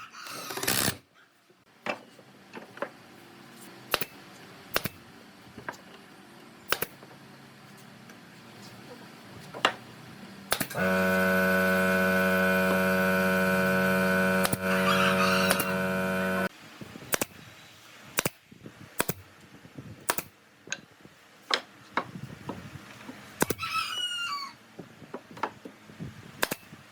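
Scattered knocks and taps, then a power tool's electric motor runs steadily for about six seconds, starting about eleven seconds in and cutting off suddenly. A rooster crows near the end.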